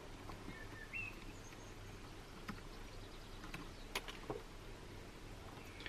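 A few soft clicks and taps from small parts being handled, the loudest about four seconds in, over a steady low hum. Two faint short chirps come about a second in.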